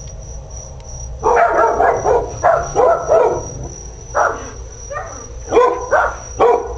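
Dogs barking in short, loud bursts, starting about a second in and repeating irregularly: alert barking set off by the doorbell.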